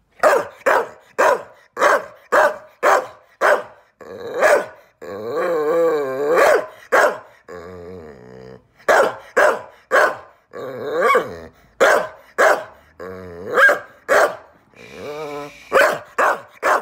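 Staffordshire bull terrier x Rhodesian ridgeback barking in quick runs of about two barks a second, broken three times by longer wavering, howling yowls. It is a dog's demanding, scolding bark-and-howl aimed at her owner to get attention.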